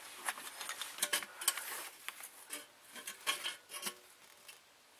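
Light clicks and clinks of metal hand tools being handled and set down, a scattered string of small taps that stops about four seconds in.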